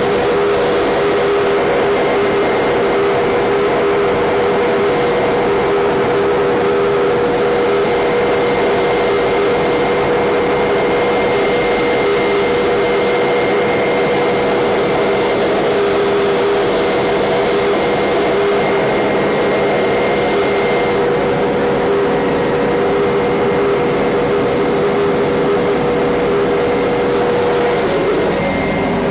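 Helicopter in flight heard from inside the cabin: a loud, steady engine drone with a high, steady whine above it. Near the end the pitch of the drone shifts slightly.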